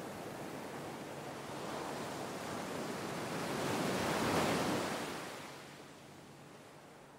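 A rushing swell of noise with no tone in it, rising to a peak a little past four seconds in, then fading away. It is a transition effect laid under the intro title card.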